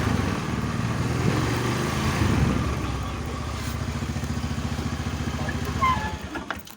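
Motorcycle engine running, settling into an even idle about three seconds in, then switched off just before the end.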